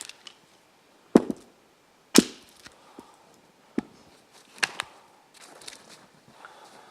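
A splitting maul knocking limbs off a felled tree: four sharp wooden blows spread over a few seconds, the first two loudest.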